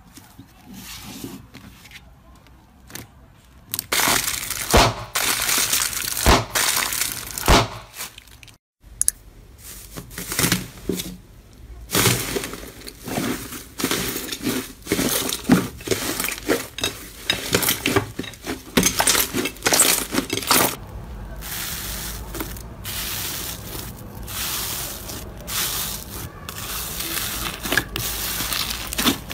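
Hands kneading and squeezing slime in a bowl, a dense run of small crackles and pops as air is pressed out of it. It is quieter for the first few seconds and thicker from about four seconds in, with a short break near nine seconds where one clip cuts to the next. Near the end the slime has foam beads mixed in.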